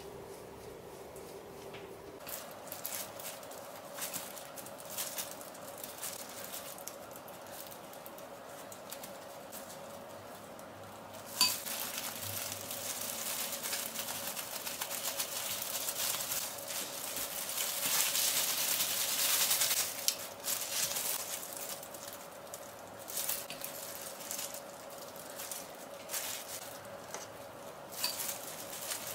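Kitchen cooking sounds: utensils and dishes clicking and clinking, then a sharp click that starts a steady hiss lasting about eight seconds before the scattered clinks resume.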